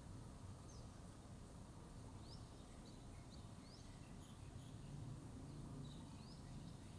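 Near-silent background: a low steady rumble with several faint, short high chirps of small birds scattered through it.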